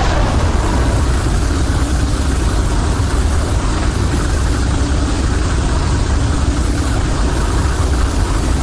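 Designed monster sound effect for Legendary's Mechagodzilla: a loud, steady, heavy mechanical rumble with a deep engine-like drone.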